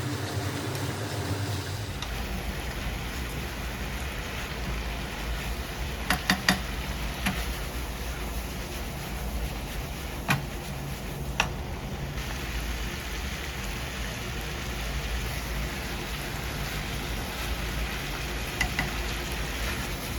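Pork belly and cabbage stir-fry sizzling steadily in a frying pan, with a few sharp clinks of a utensil against the pan.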